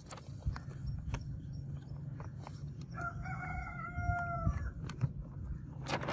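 A rooster crows once: a single held call of about a second and a half in the middle. Around it, a paper sheet crinkles as it is unfolded and handled, over a steady low hum.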